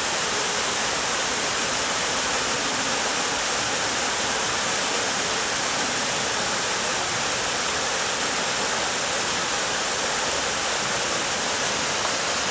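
Steady, even rush of a waterfall, unbroken throughout.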